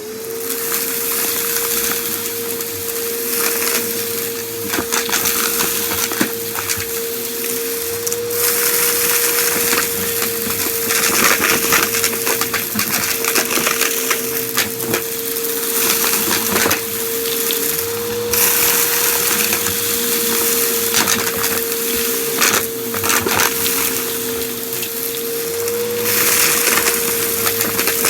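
Vacuum cleaner switching on and running with a steady motor whine, while crunchy debris crackles and rattles up the nozzle in repeated noisy stretches.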